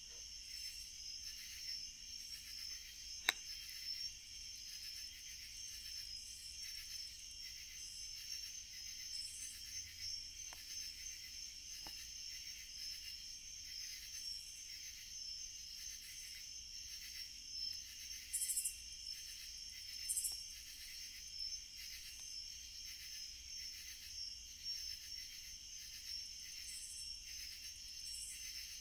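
Steady high chorus of night insects trilling with a pulsing rhythm. A wood campfire crackles under it, with one sharp pop about three seconds in and a few fainter ticks later.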